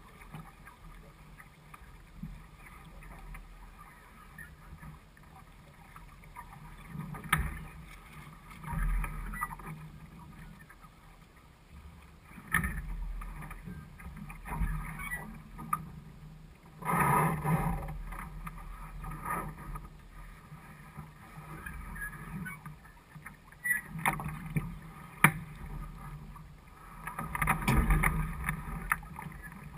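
Water sloshing and lapping against a small sailing dinghy's hull as it sails, broken by several sharp knocks and splashes. The loudest is a splash a little past halfway.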